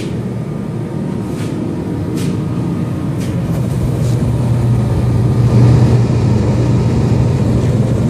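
ProTemp Sun-Stream PT-70-SS 70,000 BTU radiant kerosene heater running: a steady fan-and-burner hum that grows louder about halfway through, with a few faint knocks in the first three seconds.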